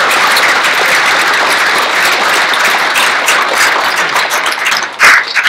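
Audience applauding, the clapping thinning out to a few loud, scattered claps near the end.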